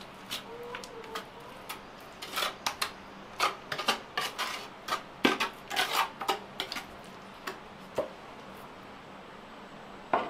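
A steel trowel scraping and clinking against a ceramic tile as cement mortar is buttered onto its back: a quick run of sharp scrapes and taps in the middle, a few more spaced out after.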